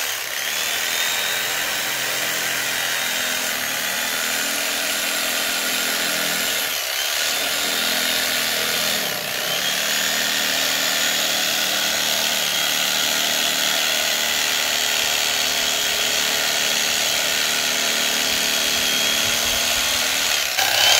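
Electric carving knife running steadily, its reciprocating blades sawing through motorcycle seat foam, with two brief dips partway through.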